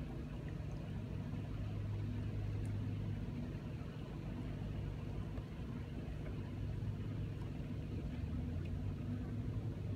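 A steady low engine hum, swelling a little now and then.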